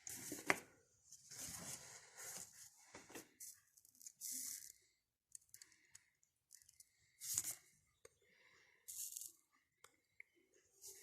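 Handling noises: a run of short rustling and scraping bursts, with a sharp click about half a second in.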